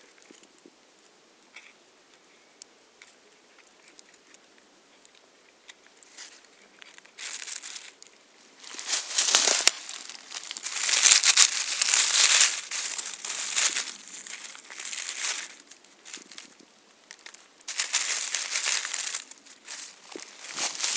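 Dry fallen leaves rustling and crackling as the leaf litter is disturbed, in irregular bursts that start about a third of the way in after a quiet opening.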